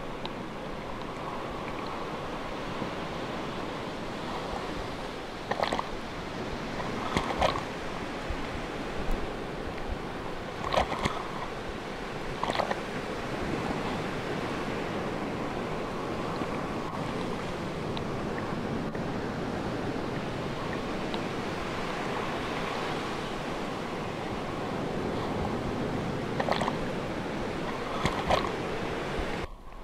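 Ocean waves washing steadily on the shore, with a few short, sharper sounds standing out now and then.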